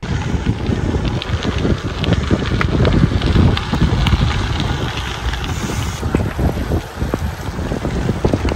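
Loud wind buffeting the microphone, as from moving at speed, with scattered clicks and rattles.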